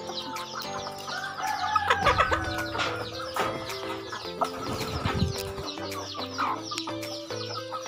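Chickens clucking and pecking at a biscuit held in a hand, with background music playing throughout.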